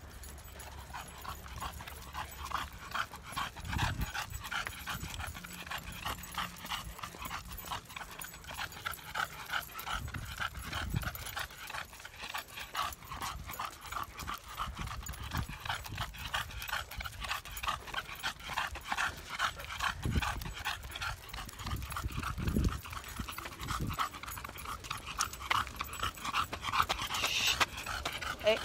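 A pack of dogs panting rapidly and steadily as they walk on leashes, with a few low thumps here and there.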